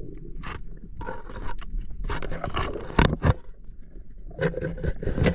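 Underwater scraping, crackling and knocking of a diver's hands and gear against a rocky reef crack while wrestling a crayfish out of its hole. It is heard muffled through a camera housing, with two sharp knocks about three seconds in.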